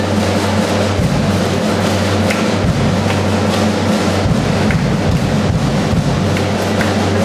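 Church music played at a Catholic Mass, heard from among the congregation, with a steady low note beneath it.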